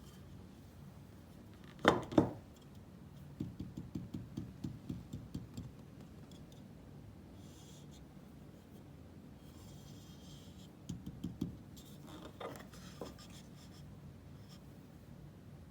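Handling of a microphone and its packaging: two loud knocks, then a quick run of about ten light taps, a stretch of papery rustling, and a few more taps and knocks near the end.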